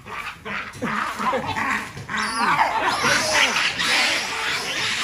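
Two male baboons fighting, giving a rapid run of overlapping calls that grows louder about halfway through.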